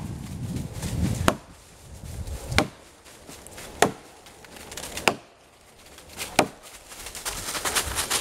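Axe chopping into a fallen hardwood log, which he thinks is ironwood: sharp, evenly paced strikes, about one every second and a quarter, as he cuts a wide notch to buck the log.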